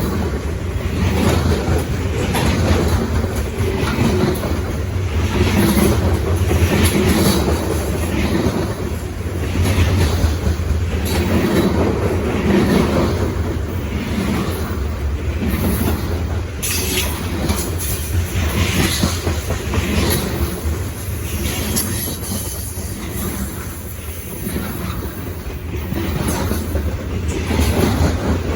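Loaded grain train's covered hopper cars rolling past, wheels clacking over rail joints in a repeating rhythm over a steady low rumble.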